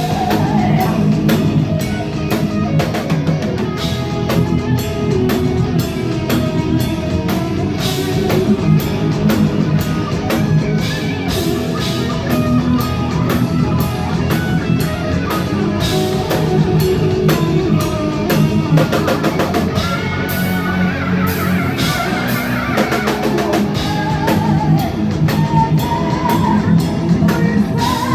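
Heavy metal band playing live, with distorted electric guitars, bass guitar and a drum kit.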